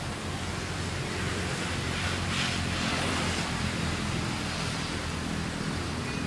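Steady outdoor wind noise, rushing through the trees and on the microphone, with a gust that swells for about a second a couple of seconds in.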